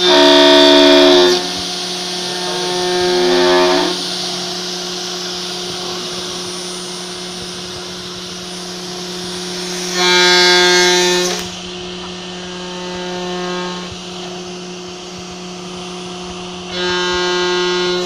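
CNC router spindle running with a steady whine while its end mill cuts aluminum in repeated passes; each time the cutter bites, a loud ringing squeal rises over the whine and then drops away, three strong passes and two softer ones.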